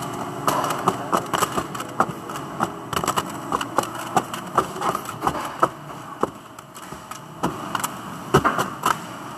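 Gloved hands handling yellow pleated filter elements on a workbench, making irregular clicks and taps a few times a second, with a loud cluster of knocks near the end. A steady hum of factory machinery runs underneath.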